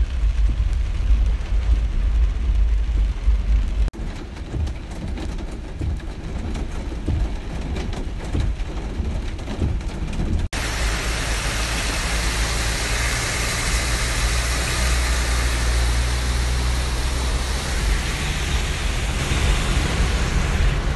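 Heavy rain beating on a car, heard from inside the cabin over a low engine rumble. About ten seconds in the rain noise grows much louder and fuller, a dense steady hiss.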